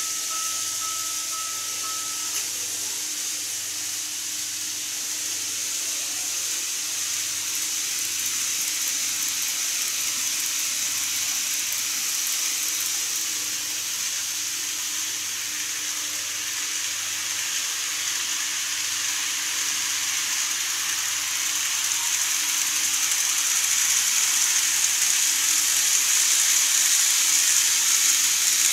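Model electric train running on plastic track, a steady whirring hiss of its motor and wheels that grows louder over the last few seconds as the train draws near.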